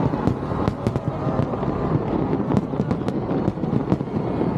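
Aerial fireworks display: a rapid run of sharp bangs, about three a second, over a continuous rumble of shells bursting.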